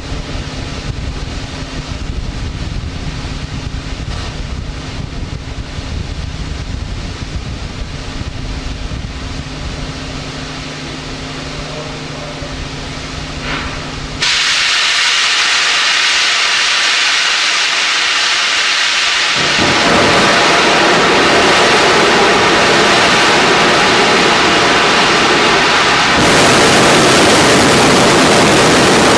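Soyuz rocket launch: a steady low rumbling noise with a faint hum while the rocket sits on the pad, then about halfway through a sudden loud rushing roar of the engines igniting, which deepens a few seconds later and grows louder again near the end.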